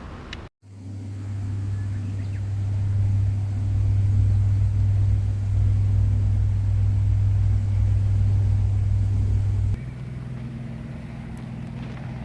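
An engine idling, a steady low hum. Nearly ten seconds in it drops sharply in level and settles into a quieter, slightly higher hum.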